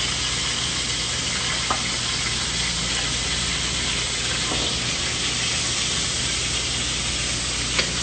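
Bone-in pork loin searing in its own rendered fat in a hot pan, sizzling steadily as the meat browns and is sealed. A couple of faint clicks come through it.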